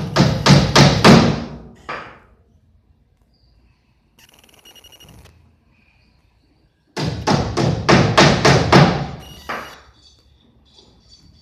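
Hammer blows on wood: two quick runs of about five or six knocks each, one at the start and one about seven seconds in. A brief buzzing sound comes in between.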